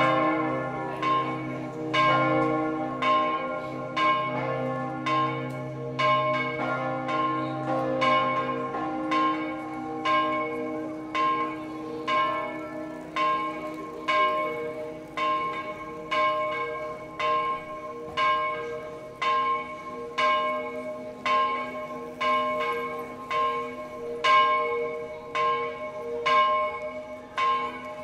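Church bells in a bell tower ringing the midday peal: strikes come about once a second, and each bell's tone rings on into the next. A deep hum from a large bell dies away over the first ten seconds or so.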